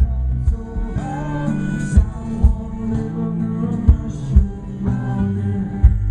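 A live band playing, with guitar and singing, and sharp low thumps about every one to two seconds standing out above the music.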